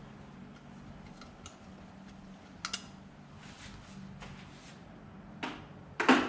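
Scattered clicks and knocks of hand tools on metal engine parts during intake plenum removal, the loudest knock near the end, over a faint steady hum.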